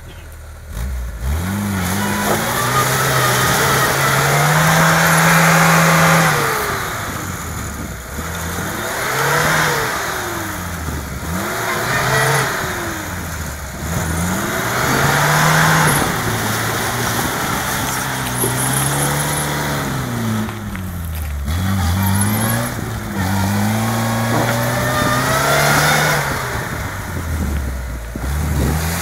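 Lada Niva's engine revved up and down again and again, about seven times, as the stuck 4x4 tries to drive itself out of a mud hole and does not get out.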